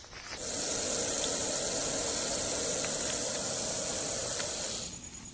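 Boa constrictor hissing: one long, steady exhaled hiss of about four and a half seconds, starting just after the beginning and cutting off near the end.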